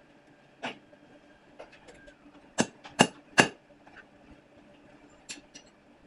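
A hand hammer striking a steel punch on a bar: one blow, then three quick, loud metallic strikes in a row, with lighter clinks of metal near the end.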